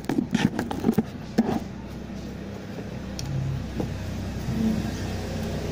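A quick run of light clicks and taps from tools being handled at a circuit board, then a steady low hum that swells slightly in the middle.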